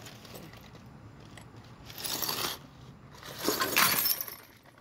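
Glass candle jars clattering together twice, the second time louder, as a jar is dropped onto other glass.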